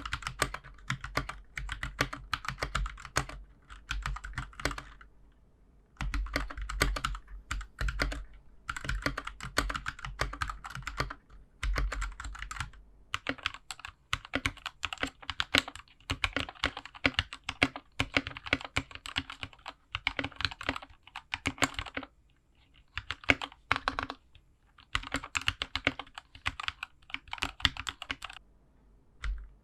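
Typing on a GK61 mechanical keyboard fitted with Gateron Milky Yellow linear switches: rapid runs of keystroke clacks in bursts of a few seconds, with brief pauses between runs, the longest about five seconds in and around twelve seconds in.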